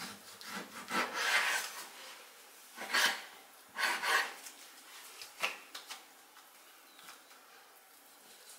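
Long kitchen knife slicing raw pork belly on a bamboo cutting board: four drawn strokes in the first five and a half seconds, the blade cutting through the meat and scraping the wood, then a few fainter cuts.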